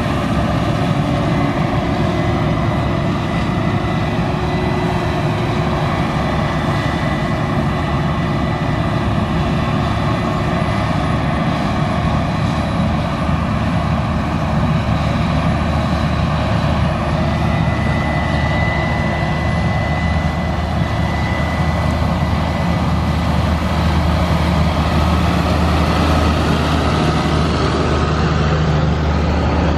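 Heavy farm machinery running steadily under load, a deep engine rumble with a steady high whine over it; the low rumble grows a little stronger in the second half.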